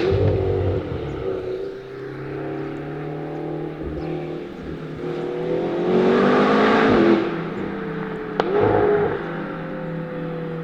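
McLaren GT's twin-turbo V8 running and being revved: pitch swings early on, a louder rev rising and falling about six to seven seconds in, then a sharp crack just after eight seconds followed by a short blip, before it settles to a steady note.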